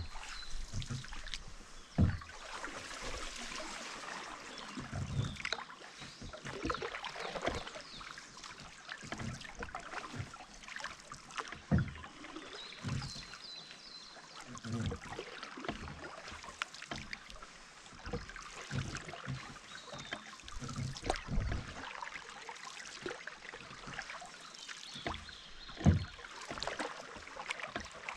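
Canoe paddling on calm water: paddle blades dipping and pulling, with water splashing and dripping off them in an uneven rhythm. A few sharper low thumps come a couple of seconds in, near the middle and near the end.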